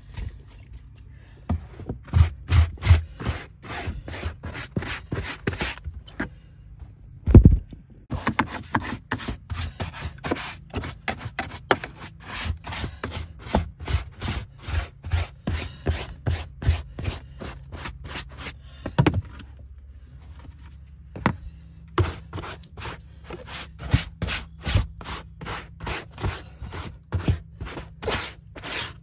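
Stiff-bristled hand scrub brush scrubbed briskly back and forth over car carpet, about three or four strokes a second, with a couple of short pauses. There is a single loud thump about seven seconds in.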